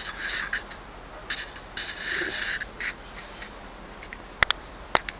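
Handling noises from a stiffened paper RC helicopter canopy being worked by hand: short rustles and scrapes, then a few sharp clicks near the end.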